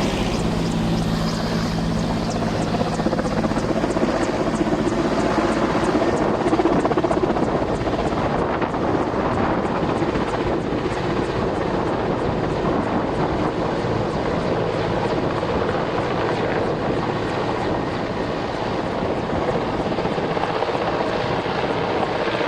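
Helicopter running close by as it comes in to land: a loud, steady din of rotor and engine. A low hum underneath fades out about fifteen seconds in.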